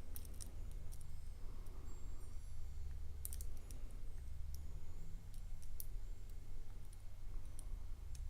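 Irregular small metallic clicks and ticks of a pick working the pins of a dimple lock under tension, over a low steady hum.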